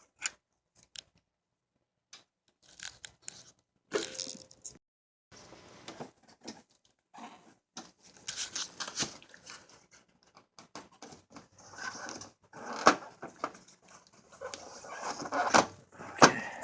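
Hand tools and metal and plastic parts handled while a turn-signal bolt is worked loose: irregular clicks, knocks and short scrapes, with sharper clicks in the second half.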